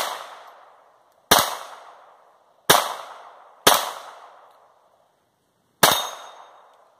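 Browning Buck Mark .22 LR semi-automatic pistol being fired five times, one shot right at the start and four more at uneven gaps of one to two seconds, each sharp crack trailing off over about a second.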